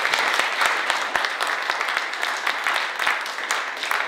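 An audience applauding: many hands clapping steadily in a dense patter.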